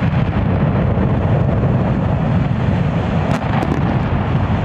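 Deep continuous rumble of a demolished 300 ft concrete cooling tower collapsing after its explosive charges, with a few sharp cracks about three and a half seconds in.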